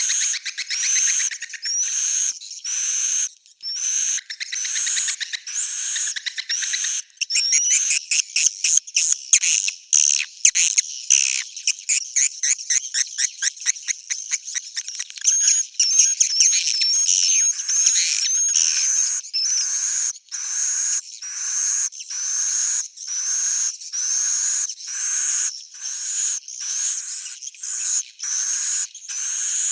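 Recorded swiftlet roosting calls, the lure sound played in swiftlet houses: short twittering chirps repeating about once a second. From about a quarter of the way in to halfway, they turn into a fast run of rapid clicking chirps and rising trills, then return to the steady pattern.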